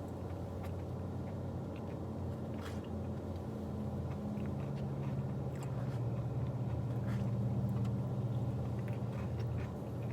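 Car engine idling with the air conditioning running, a steady low hum that grows a little louder about halfway through, with a few short clicks from eating.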